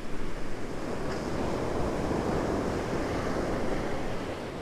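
Ocean surf breaking and washing up the beach, an even rush that swells a little a couple of seconds in and eases off near the end.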